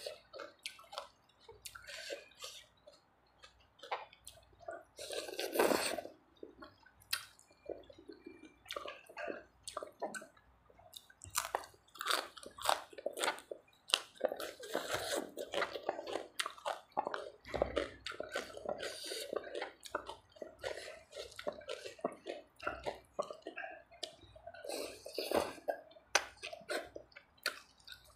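Close-up wet chewing and lip smacking: a person eating a spicy Thai tam sua salad of khanom jeen rice noodles and raw greens by hand, with many short irregular smacks and crunches.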